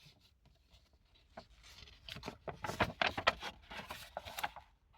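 Soft rustling and scuffing, growing into a cluster of quick scrapes after the first second and a half.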